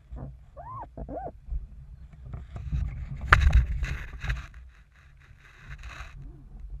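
Knocks, thuds and rustling of a tack in a small RS Feva sailing dinghy: the crew scramble across the hull and the sail and rigging flap over, with one sharp knock in the middle. Two short rising-and-falling cries come near the start, over a steady low rumble of wind and water.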